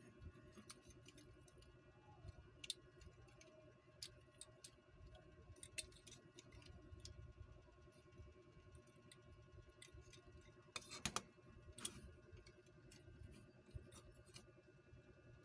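Faint, scattered clicks and taps of the hard plastic parts of an HG 1/144 Z'Gok model kit as it is handled and its limbs are moved, with a small cluster of clicks about two-thirds of the way through, over a low steady room hum.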